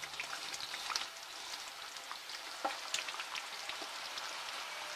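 Chicken curry simmering and sizzling in a pan, a steady faint hiss with scattered small crackles, while a utensil stirs through the sauce with a few soft knocks.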